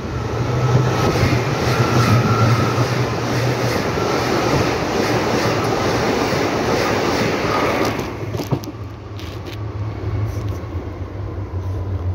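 Berlin U-Bahn small-profile train on line U2 passing close by: loud rumbling of wheels on the rails with a faint whine. It drops off sharply about eight seconds in as the last car goes by, then a lower rumble carries on as it runs away.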